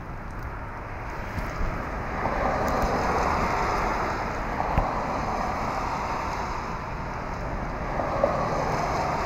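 Vehicles passing on a wet road: an even tyre hiss over a low rumble that swells about two seconds in and again near the end.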